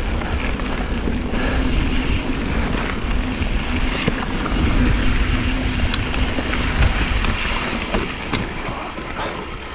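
Mountain bike riding down a rough, rocky dirt trail: tyres rumbling over rock and gravel with a steady rattle and many small knocks from the bike.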